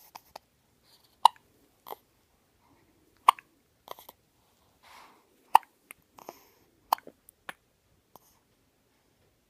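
A baby hiccuping: short, sharp hiccups every second or two, some louder and some fainter.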